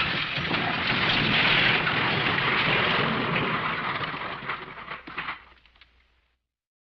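Crash-and-smash sound effect: a dense, loud noise of breaking and crashing that holds for about four seconds, then tails off with scattered clatter of settling debris and cuts to dead silence.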